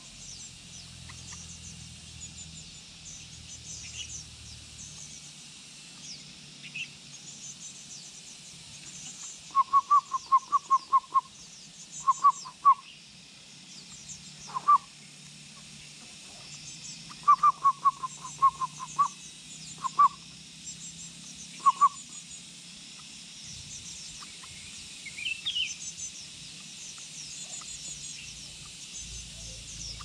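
A bird calling in quick runs of short hoot-like notes: a few bursts of several notes each, plus single notes, through the middle of the stretch. Under it runs a steady high chirring of insects.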